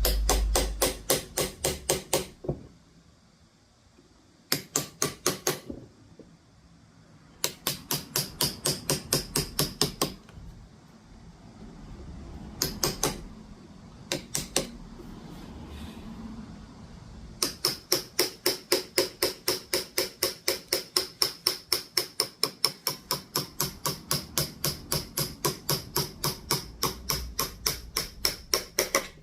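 Mallet striking a wood-carving chisel in quick, even taps, about four a second, cutting straight lines for relief carving. The taps come in runs with short pauses between them, and the longest run covers the last third.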